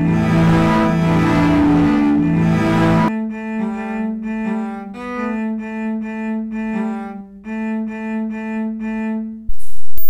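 Layered cellos bowing long held notes in a dense cluster. About three seconds in this thins to a few sustained notes in short phrases with brief gaps. Near the end it cuts abruptly to loud, harsh static noise.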